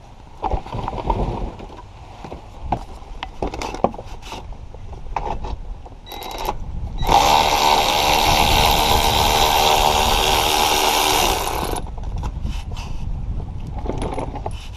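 Cordless electric ratchet running steadily for about five seconds, loosening a bolt, starting about seven seconds in and stopping abruptly. Before it, scattered clicks and knocks of hands and tools handling the parts.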